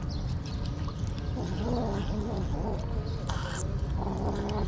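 Stray cats and kittens eating wet cat food from a tray, with small wet chewing clicks. One of them gives several short, wavering, low-pitched calls while it eats. A brief hiss-like noise comes a little over three seconds in.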